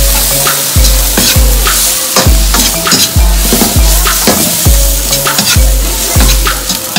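Lobster pieces stir-frying in a wok, sizzling, with a metal ladle scraping and tossing them against the pan. Background music with a deep, regular bass beat plays over it.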